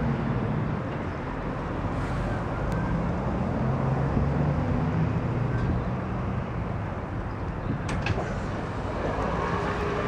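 Steady road-traffic rumble, with faint engine hum from passing vehicles and a few sharp clicks about eight seconds in.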